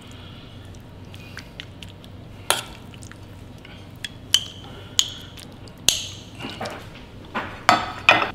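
A metal spoon clinking against a small drinking glass and a stainless steel bowl while tuna tartare is scooped and packed into the glass: about seven sharp separate taps, a few with a short glassy ring, the last ones close together near the end.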